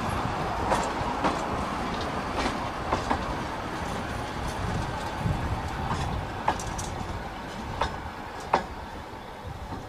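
Narrow gauge passenger coaches rolling past and drawing away: a steady low rumble of wheels on track with sharp irregular clicks as the wheels cross rail joints, slowly getting quieter.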